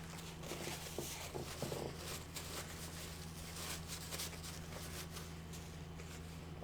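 Eating a taco: faint chewing with scattered small clicks and crinkles, over a steady low electrical hum.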